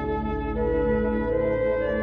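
Slow ambient new-age music: sustained wind-like synthesized tones over a steady low drone, with a new held note coming in about half a second in.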